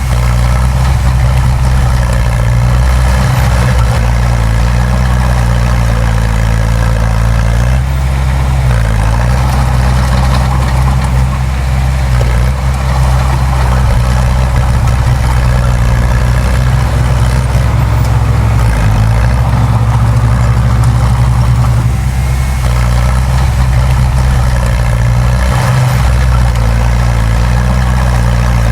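Heavy diesel engine of earthmoving machinery running steadily under load, a low loud drone that shifts in pitch briefly about a third of the way through and again near the end.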